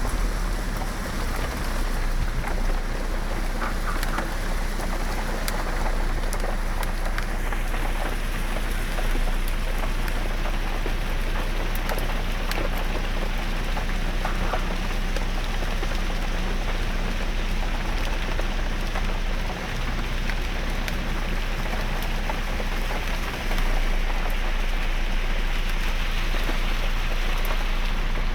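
Heavy downpour of rain, a steady dense hiss of drops hitting surfaces, with scattered small clicks of individual drops; it grows a little louder about two-thirds of the way through.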